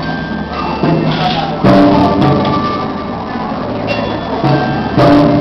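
Music: held notes and chords, with louder new chords coming in about two seconds in and again near the end.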